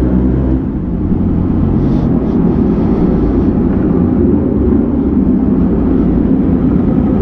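A vehicle running along with a loud, steady low rumble of engine, road and wind noise; about half a second in, a steady engine hum gives way to a rougher, noisier rumble.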